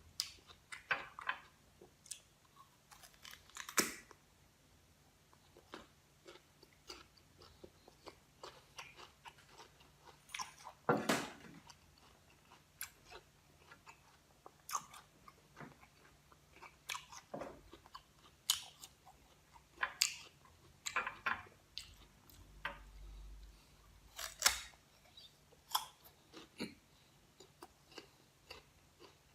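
Crisp green guava being bitten and chewed close to the microphone: irregular sharp crunches with quieter chewing between, a few louder bites standing out.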